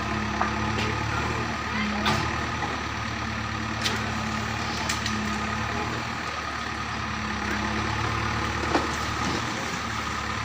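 A machine engine running steadily with a low hum, with scattered sharp knocks or clanks, about five of them.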